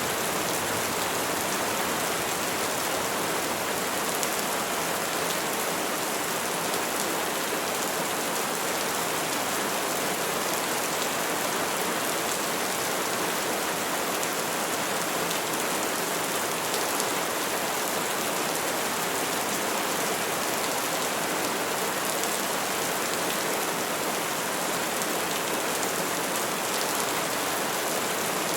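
Steady rain falling on the leaves of trees, an even patter without thunder.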